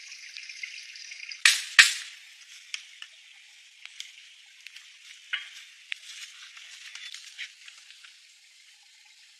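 Two sharp knocks about a third of a second apart, then faint scattered crackles and rustling.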